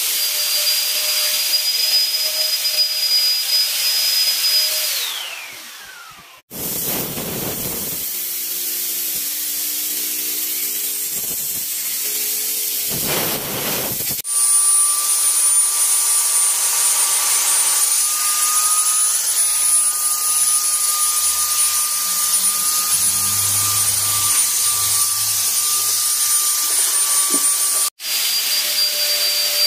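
Electric ULV fogger's blower motor running with a steady whine and hiss; about five seconds in it winds down, its pitch falling as it fades. After a quieter spell of hiss it runs again at a higher pitch, steady, until an abrupt cut near the end, when the first whine returns.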